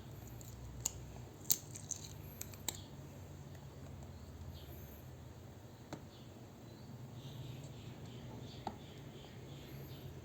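Scattered light clicks and taps from hands handling small objects, several in quick succession between about one and three seconds in and single ones later, over a low steady hum.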